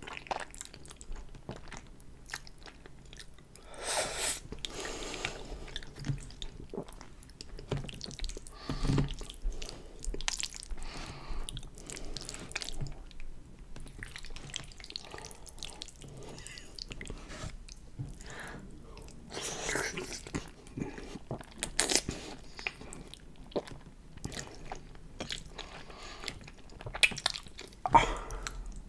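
Close-miked mouth sounds of eating saucy pasta noodles: wet chewing and smacking with many small irregular clicks, broken every few seconds by louder slurps of noodles.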